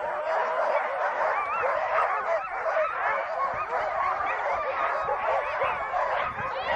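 A chorus of many sled dogs barking and yelping excitedly, their calls overlapping without pause, as a team does when it is hitched and eager to run at the start of a sled ride.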